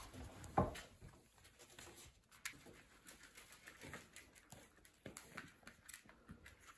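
Flat-coated retriever puppy and a Prague ratter play-fighting: soft scuffling of paws and bodies with scattered light knocks, and a thump about half a second in.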